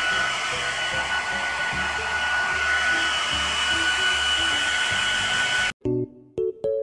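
Handheld hair dryer blowing steadily: a rushing of air with a high motor whine, cut off abruptly after nearly six seconds. Piano music follows near the end.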